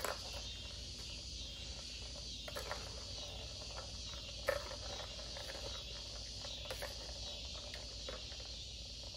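Steady chirring of crickets, with a few sharp clicks and knocks over it, the loudest about four and a half seconds in.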